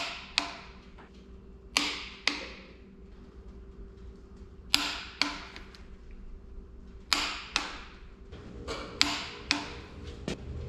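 Click-type torque wrench breaking over at its set torque on cylinder-head bolts, one bolt after another. Five sharp double clicks come about every two and a half seconds, one for each bolt brought up to torque.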